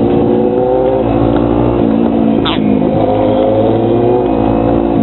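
Motorcycle engine running under way in slow traffic. Its pitch climbs slowly, drops about two seconds in, then climbs again. A brief high sweeping sound comes about halfway through.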